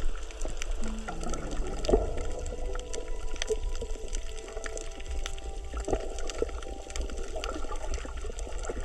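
Underwater coral-reef crackle: a dense scatter of small clicks and pops over a steady low water rumble, heard underwater. The uploader takes this 'michi-michi' crackle for coral breathing, mixed with coral breaking as fish graze on it.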